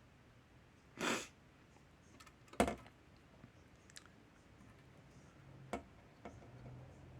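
A short sniff, then a sharp tap and a few lighter clicks, like tools or parts being handled and set down on a workbench.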